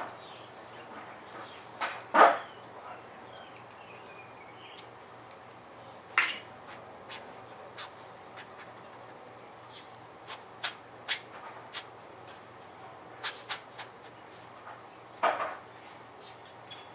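Scattered small clicks and metal clinks of hand tools being picked up and set down on a concrete floor beside a tire, with three louder knocks about two, six and fifteen seconds in.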